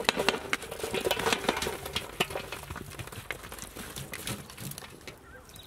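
Fried shark pieces tipped into a large aluminium pot: a rapid patter of small knocks and clatters as the crisp pieces land on the metal and are pushed in by hand. The clatter thins out over the last couple of seconds.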